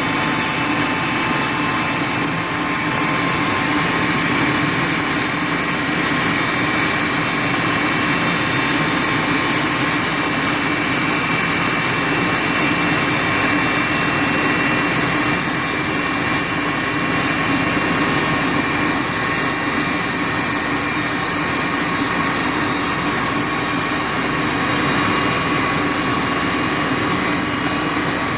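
Mosquito XET single-seat turbine helicopter running steadily: a constant high-pitched turbine whine over a continuous rushing engine and rotor noise.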